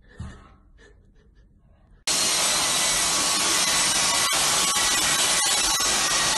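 After a couple of seconds of faint taps, a stick vacuum cleaner starts suddenly and runs steadily with a high whine. Its floor head is being run over a dog's fur.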